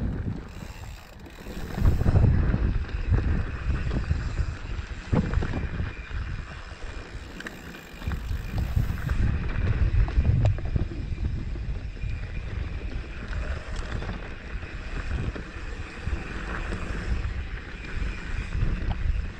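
Wind buffeting the microphone as a mountain bike rolls fast down a dry, rocky dirt trail, with frequent knocks and rattles from the bike over the rough ground.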